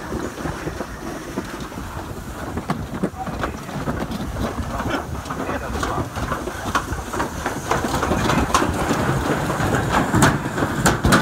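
Toboggan sleds rolling fast down a metal slide chute: a steady rattling rumble with frequent sharp clacks of the sled against the track. It gets louder and more clattery toward the end as the sleds speed through the banked turns.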